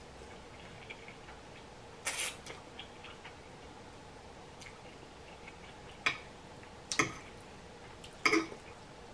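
Close-up eating sounds: a slurp of ramen noodles about two seconds in, then a few short wet mouth clicks and smacks while chewing, the last of them near the end.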